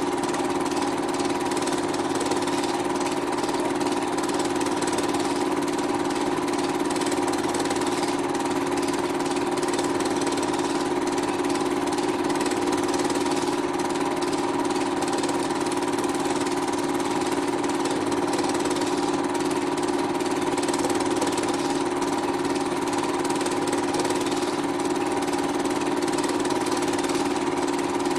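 Steady mechanical whir of a running film projector, even and unchanging, with a constant hum.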